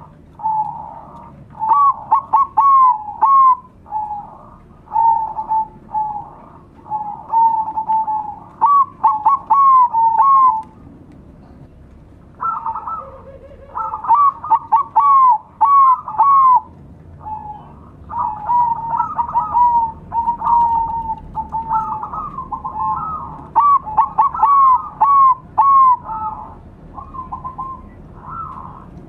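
Several zebra doves (perkutut, including Bangkok-bred birds) cooing at once in overlapping phrases of short, quick notes, with a pause of a couple of seconds about ten seconds in.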